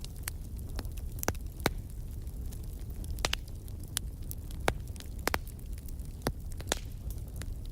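Wood fire burning in a fireplace: irregular sharp crackles and pops from the burning logs over a low steady rumble of the flames.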